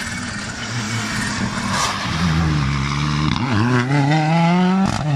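Rally car engine: the revs dip about three and a half seconds in, then it accelerates hard with the pitch climbing, and near the end it shifts up with a short crack and the pitch drops.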